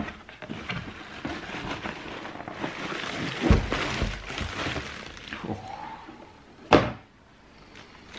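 A cardboard shoebox and its packaging being handled: rustling and light knocks, with a sharp thump a little before the end.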